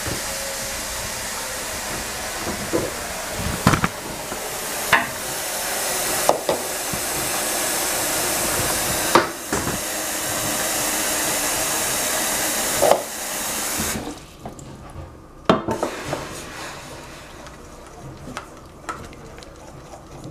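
Kitchen tap running hard into a metal pot in a stainless steel sink, filling a cold-water bath, with a few sharp metallic knocks. The water is shut off about 14 seconds in, and after that come light clinks and scrapes of a saucepan and a wooden spoon in the sink.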